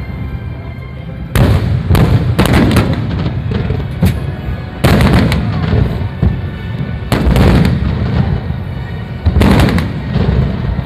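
Fireworks bursting: a series of sharp bangs, about eight in all, some in quick pairs or threes. Each bang is followed by a low rumbling echo and crackle that trails off.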